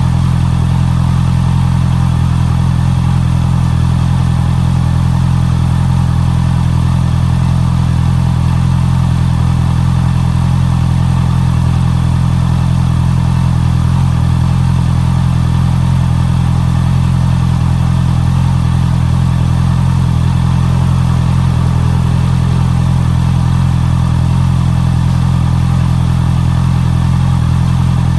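Honda CB650R's inline-four engine idling steadily through its stock exhaust, with an even, unchanging pitch and no revs.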